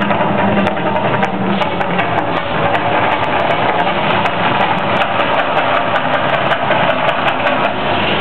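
The Mirage volcano show erupting: a loud, steady rumbling roar of fire effects and show sound, unbroken throughout.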